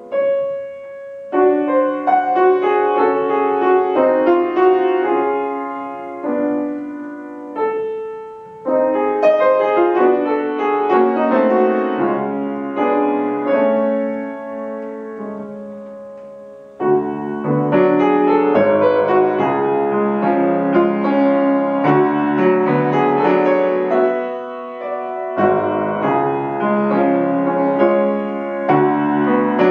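Grand piano played solo: a classical piece in phrases that swell and fade away, then a sudden louder, fuller passage starting a little past halfway.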